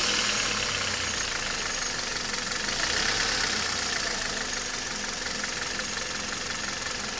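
Kia Cerato 1.6 engine running steadily with a fast, regular knocking tick: the knock the owner is recording.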